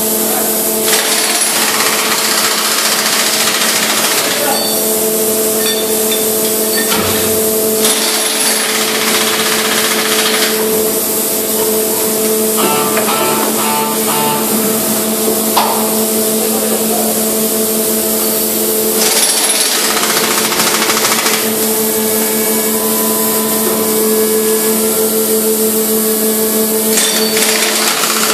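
Tunnel boring machine's hydraulics humming steadily, with several stretches of loud rattling noise a few seconds long from a power wrench tightening the bolts of the concrete lining segments.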